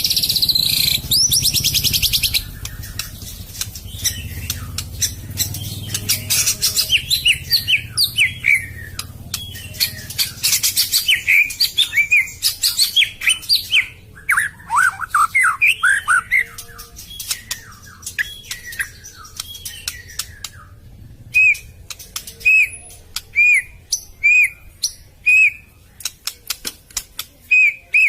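White-rumped shama (murai batu) singing a varied song: fast buzzy trills and chatter, then whistled sweeping phrases, and in the last quarter a run of single short whistled notes repeated about once a second.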